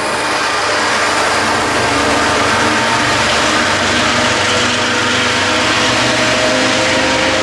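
MBTA commuter train's diesel locomotive running steadily as it moves away along the track, its engine drone mixed with wheels rolling on the rails.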